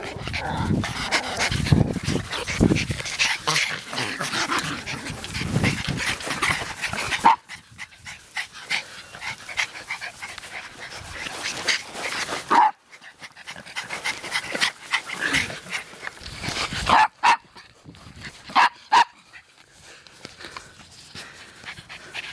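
Miniature Pinscher puppies playing in long grass. For the first several seconds there is a dense rustling close to the microphone, then several short, sharp barks spaced a few seconds apart.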